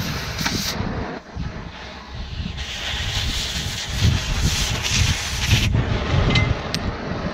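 Oxy-fuel cutting torch hissing as it cuts through steel pipe, in two stretches with a short lull between, the hiss stopping about five and a half seconds in. A low rumble runs underneath, and a couple of light clicks come near the end.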